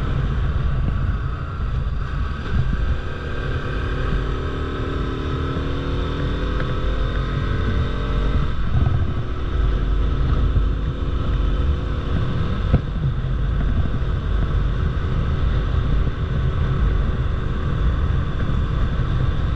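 Bajaj Pulsar RS200's single-cylinder engine running under way, with heavy wind rumble on the microphone. The engine note climbs from about three seconds in, drops sharply about eight seconds in, then steadies and rises again.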